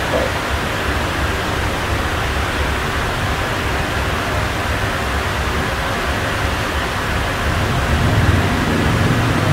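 Steady rushing noise with a low rumble underneath that grows a little stronger near the end; no distinct events.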